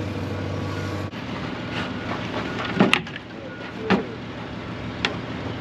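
A steady low hum cuts off about a second in. A few sharp clunks and knocks follow, the loudest about three seconds in, as a plastic jug of John Deere Hy-Gard transmission-hydraulic fluid is handled and tipped into the tractor's filler.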